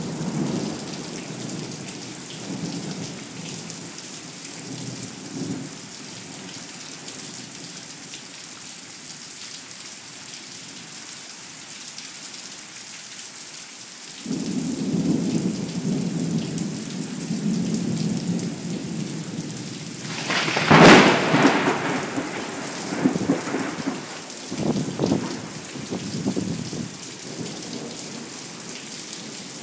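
Thunderstorm: heavy rain falling steadily with thunder, a low rumble at the start and a long rolling rumble from about halfway. About two-thirds through comes a sudden, loud thunderclap, followed by a few shorter rumbles.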